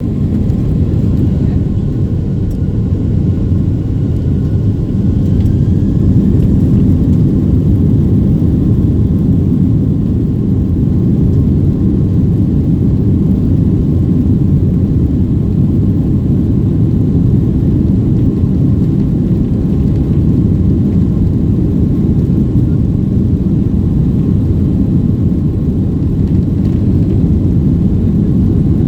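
Steady low rumble of a Boeing 757 jet airliner's engines, even in level throughout. A faint thin whine sits above it for the first few seconds.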